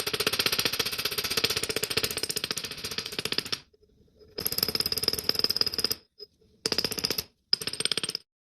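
A power tool with a fast rattling stroke, about twenty a second, run in bursts: one of about three and a half seconds, one of about a second and a half, then two short ones near the end.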